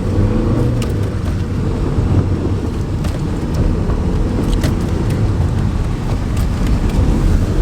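Car engine and tyre noise heard from inside the cabin while driving on a snowy road: a steady low rumble with a few faint clicks.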